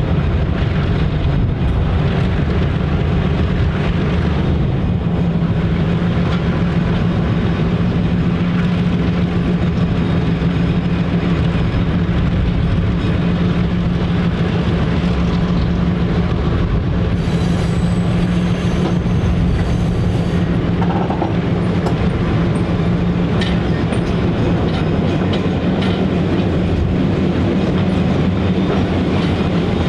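Train with a diesel locomotive, its engine a steady loud drone as the train runs on the rails.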